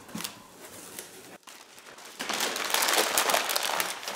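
Brown kraft packing paper and a paper bag rustling and crinkling as they are handled and pulled out of a cardboard box. The rustling is light at first, then becomes a dense, louder crackle about two seconds in.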